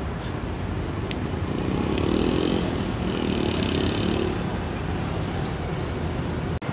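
Steady low rumble of a motor vehicle's engine, swelling for a couple of seconds in the middle, with a brief dropout near the end.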